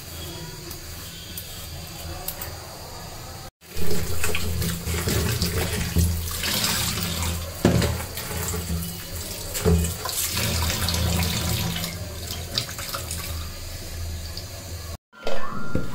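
Kitchen tap water running into a stainless steel sink while vegetables are rubbed and rinsed by hand in a steel bowl, louder from about four seconds in, with a few knocks.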